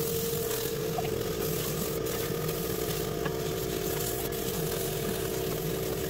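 Steady hissing spray from a hose-fed spray gun on the bare sheet-metal floor of a minivan, over a steady machine hum.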